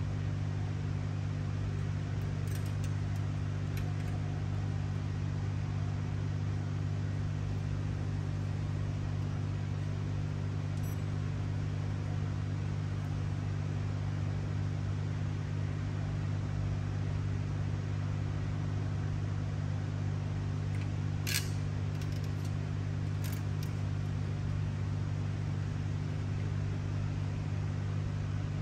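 Steady low mechanical hum with a few light clicks, and one sharper tick about two-thirds of the way through.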